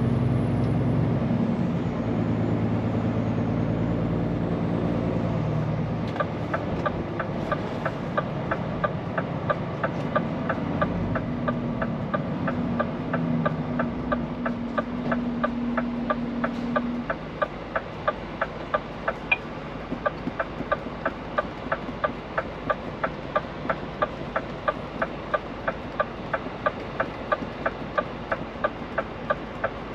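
Cab of a Scania P410 truck: the diesel engine running, with a turn-signal indicator relay ticking steadily about twice a second from about six seconds in. Past the halfway point the engine drops quieter and the ticking stands out.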